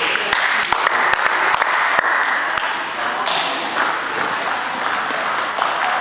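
Table tennis ball being hit back and forth in a doubles rally, clicking off bats and table about twice a second through the first couple of seconds.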